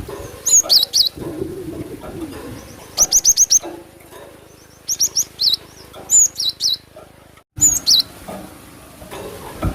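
Cinereous tit (glatik batu) calling in about five short bursts of quick, high, sliding notes, one to two seconds apart.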